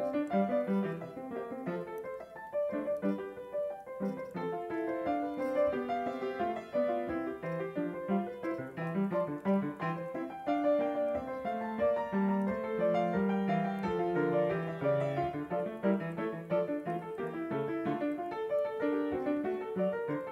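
Piano music playing, a steady flow of notes and chords.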